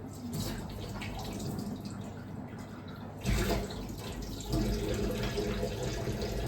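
Water running and splashing, with a low rumble joining about three seconds in and a sharp knock near the end.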